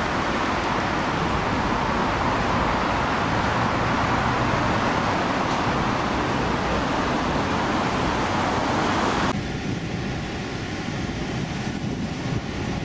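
Steady roar of road traffic that drops sharply about nine seconds in, leaving a quieter hum.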